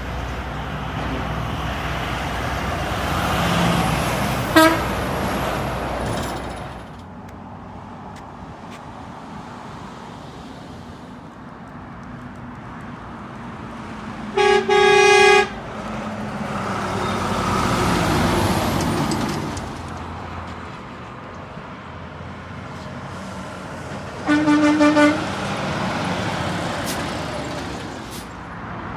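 Traffic passing on a multi-lane road, with semi-truck air horns blown three times: a brief toot about five seconds in, a loud short-then-long blast around the middle, and a shorter pulsed blast near the end.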